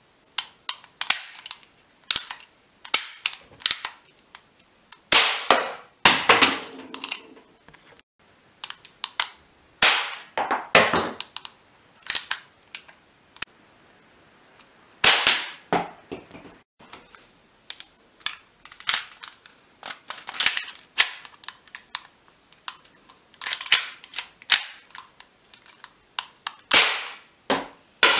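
GM2 1911-style cap-firing model gun being worked and fired: several sharp cap shots with a short ring, between lighter metallic clicks of the slide and hammer.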